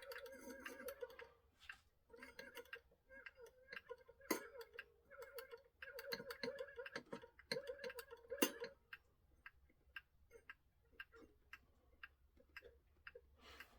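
1970s Seiko time-dater clock movement ticking, faintly, now running after restoration and setting. A wavering mid-pitched tone sounds over it for about the first nine seconds.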